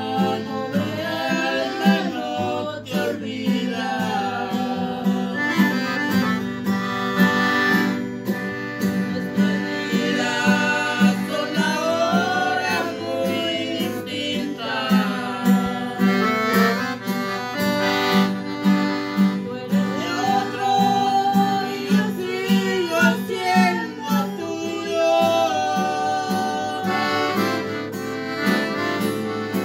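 Piano accordion and acoustic guitar playing a song together, the guitar strumming a steady rhythm under the accordion's melody, with voices singing along.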